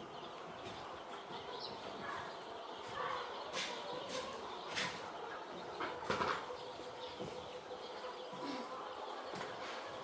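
Three-day-old poultry chicks peeping as a flock, with a few sharp knocks or clatters in the middle.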